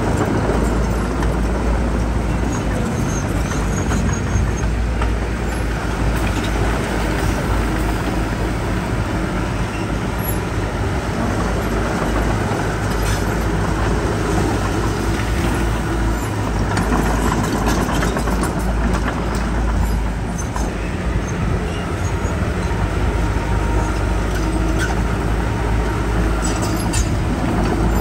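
Heavy earthmoving machinery (bulldozer and dump trucks) running steadily with a deep diesel rumble, with a few short knocks or clanks now and then.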